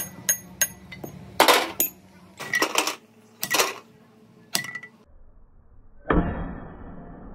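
Hand hammering on a scrap engine block's cylinder liners. It starts with a few sharp, ringing metal taps, followed by several clattering knocks about a second apart. About six seconds in, a sledgehammer lands one heavy blow on the block with a deep thud that dies away.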